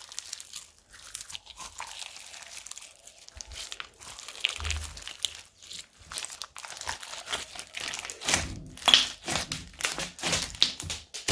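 Slime being squished and mixed by hand, giving a run of irregular crackling clicks and pops that grows louder near the end.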